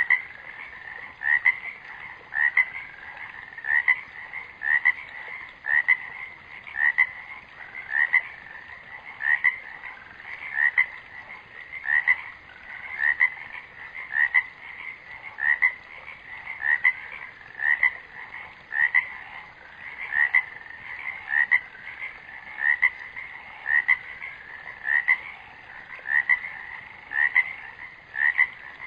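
A short chirping animal call repeated at an even pace, about once a second.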